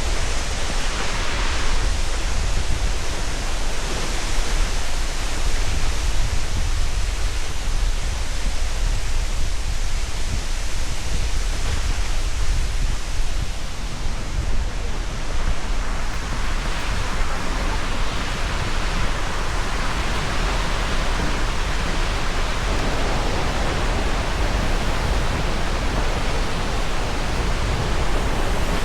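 Multnomah Falls' water pouring and crashing, a steady, dense rush with a deep rumble underneath.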